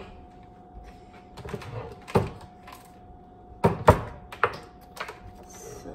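Several sharp knocks and clatters as an electric hand mixer is handled and set upright on a wooden cutting board, its cord being gathered. The loudest knocks come about two and four seconds in. A faint steady tone runs underneath.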